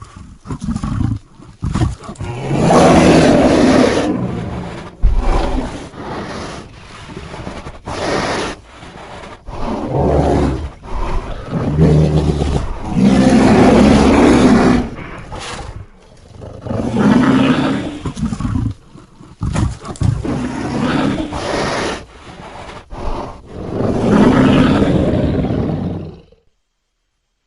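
Fan-made King Kong giant-gorilla monster sound effects: a string of loud, rough roars of one to two seconds each, with short sharp bursts between them. The sound cuts off suddenly near the end.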